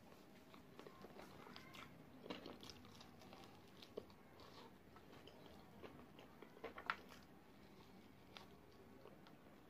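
Faint chewing and biting into sauce-coated fried chicken wings, with a few scattered clicks. The sharpest click comes about seven seconds in.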